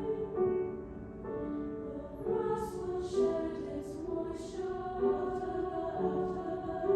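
Choir singing sustained chords with piano accompaniment, with a few soft hissed 's' consonants from the singers near the middle.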